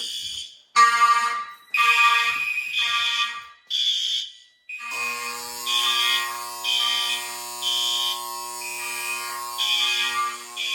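Several fire alarm notification devices sounding together after being set off from the panel: a horn gives short, evenly repeating blasts. About five seconds in, a second horn joins with a steady continuous tone beneath the pulsing blasts.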